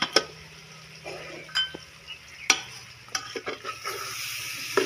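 A metal spoon stirring pork curry in a metal pot over a wood fire, with several sharp clinks and scrapes against the pot. The meat sizzles as it fries, and the sizzling grows louder near the end.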